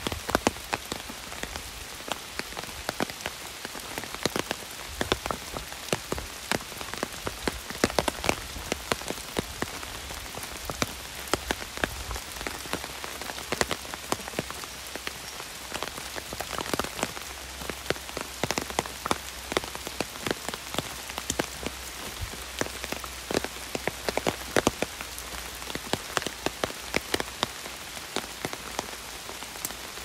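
Heavy rain: a steady hiss of rainfall, with drops striking an umbrella overhead as many sharp, irregular taps.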